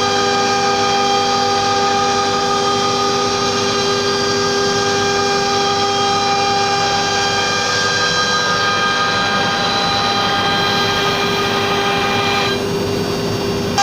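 CNC router spindle running at high speed and cutting plywood: a steady, loud whine of several held tones over a rushing noise. Near the end the higher tones fade for about a second.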